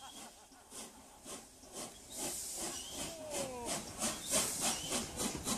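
Three-cylinder steam locomotive (LNER A1 Pacific 60163 Tornado) starting away: sharp exhaust beats, about two a second at first and quickening to about three a second as it gathers speed, over a hiss of escaping steam.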